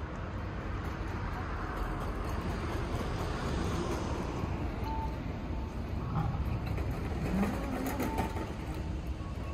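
Road traffic: a steady rumble of vehicles, swelling as one passes a few seconds in, with a couple of short faint beeps later on.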